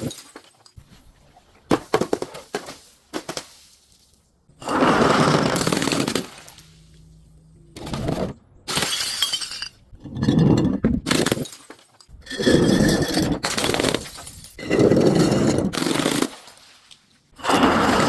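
Glass bottles breaking and crunching under crushing, in about seven separate bouts of dense crackle, each a second or so long, with short pauses between.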